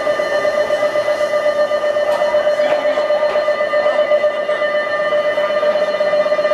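Station platform's electric departure bell ringing continuously on one steady pitch with a fast rattling flutter, signalling that the train is about to leave.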